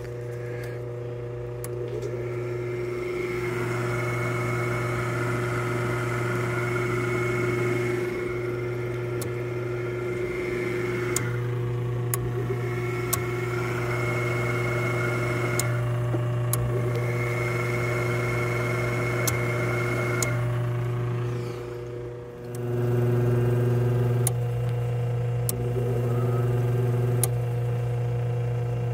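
Hot tub pump motor running with a steady low hum and a higher whine that comes and goes; the sound dips briefly about 22 seconds in and comes back louder. The motor starts slow because the tub, wired for 230 volts, is getting only 120 volts.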